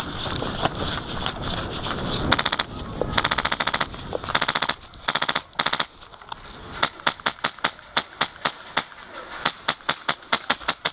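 Airsoft rifle firing: several short full-auto bursts of rapid clicking shots between about two and six seconds in, then single shots at about three a second toward the end. Before the first burst there is a rustling haze of movement.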